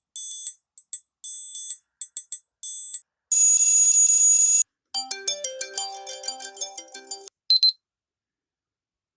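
A series of different alarm-clock ringtones played one after another with silent gaps: short high electronic beeps, then a loud buzzing ring about three seconds in, then a quick electronic melody and one short tone near the end.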